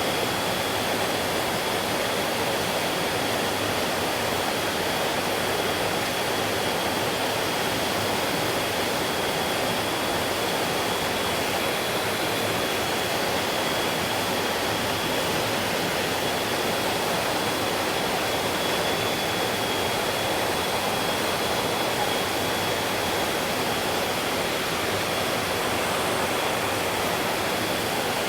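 Stream water flowing with a steady, even rush, joined by a thin, steady high tone that does not change.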